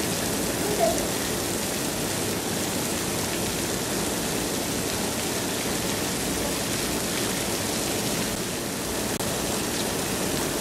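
Jumping-water fountain jets spraying and falling onto a pool and wet ground: a steady, rain-like hiss of splattering water. A brief, slightly louder sound comes about a second in.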